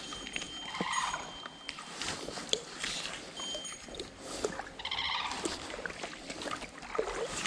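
Animal calls from the streamside woods, two louder ones about a second in and about five seconds in, with a thin high steady whistle near the start and scattered small clicks.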